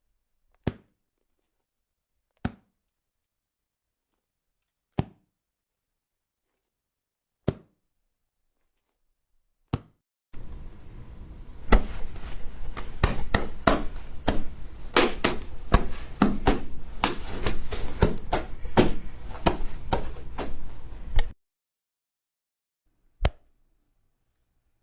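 Body hit sound effects: single sharp punch-like impacts about two seconds apart, five in a row. Then comes a flurry of rapid blows over a hissy background lasting about eleven seconds, and one more single hit near the end.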